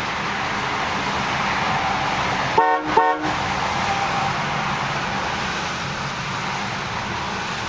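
Car horn of a 1990 Cadillac Brougham sounding two short toots in quick succession, about two and a half seconds in, over a steady hiss of wind and distant highway traffic.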